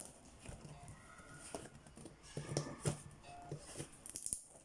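Rustling and scattered light clicks and taps of a shipping package's wrapping being handled and opened.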